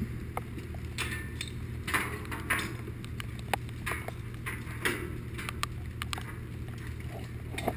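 Rain: scattered drops tapping irregularly near the microphone, about one or two a second, over a steady low hum.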